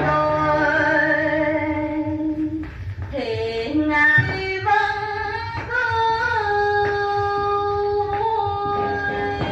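A woman's voice singing long, held, wavering notes in a Vietnamese tân cổ song, with light instrumental accompaniment underneath. The voice slides in pitch about three seconds in, then holds a long steady note.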